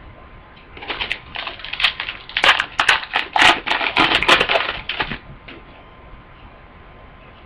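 A foil trading-card pack being torn open and its wrapper crinkled: about four seconds of irregular crackling with sharp clicks, starting about a second in.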